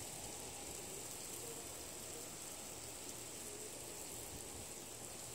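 Steady outdoor background hiss with a constant high-pitched band and no distinct events.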